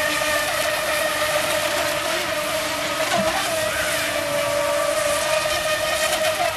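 Electric motors of radio-controlled racing boats running flat out, a steady high-pitched whine over a constant hiss.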